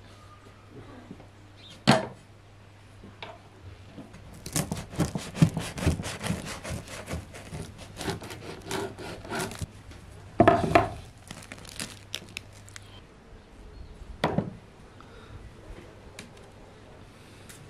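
A knife sawing through the crisp crust of a freshly baked round loaf on a wooden board, a dense run of crackling crunches. A sharp knock comes about two seconds in, and louder thumps come about ten and fourteen seconds in.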